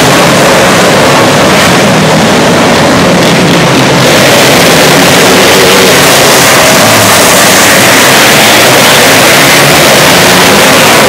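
Engines of several small winged dirt-track sprint cars running laps together: a loud, steady engine din in a covered arena, with a car passing close by about six seconds in.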